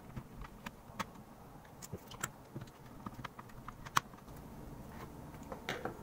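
Small irregular clicks and taps of a screwdriver and screws being worked out of a mechanical keyboard's switch plate, a few a second, with one sharper click about four seconds in.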